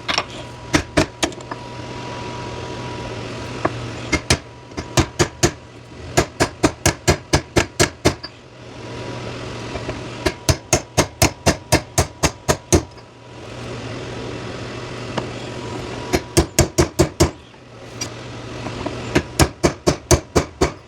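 Small hammer tapping a knurled pin into a car door hinge to start it through the bushings: runs of quick, sharp metal taps, several a second, broken by short pauses, over a steady hum.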